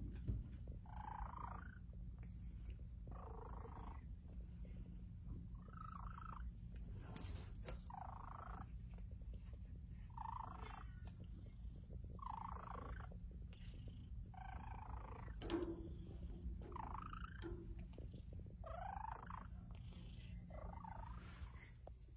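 Domestic cat purring: a faint, steady low rumble, with a short higher-pitched sound about every two seconds.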